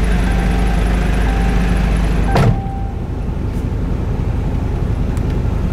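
A motor vehicle's engine runs with a steady low rumble. It breaks off at a sharp click about two and a half seconds in, and a lighter, hissy street noise follows.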